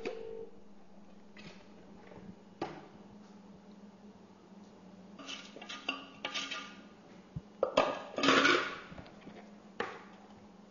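Plastic kitchenware being handled: a food processor's plastic bowl knocking and scraping against a plastic mixing bowl as bread dough is tipped out. There are a few scattered knocks, and a longer scrape a little past the middle is the loudest part, over a faint steady hum.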